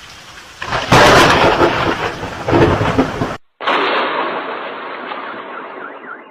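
Thunder sound effect: a thunderclap about a second in that rolls for a couple of seconds and cuts off abruptly, then a second, duller roll of thunder that slowly fades.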